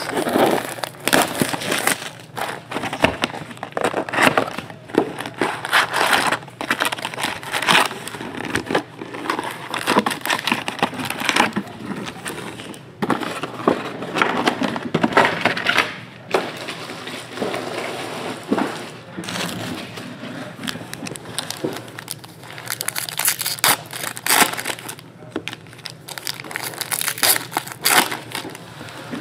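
Crinkling plastic shrink wrap being torn off a trading-card box, then foil card packs rustling as they are handled and stacked. Near the end a foil pack crackles as it is torn open.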